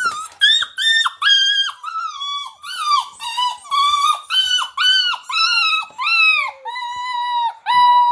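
English Springer Spaniel puppy, 7–8 weeks old, crying in a crate: a rapid run of high yelps, about two a second, each dropping in pitch at the end, turning into longer, steadier howls near the end. It is a puppy protesting at being shut in a crate on its own for time-out.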